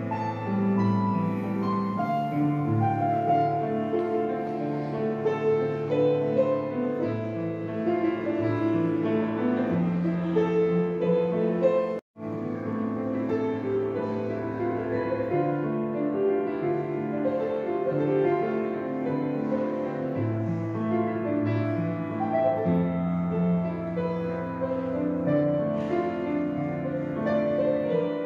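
Grand piano being played, a continuous piece of held notes and chords. The sound breaks off completely for an instant about twelve seconds in.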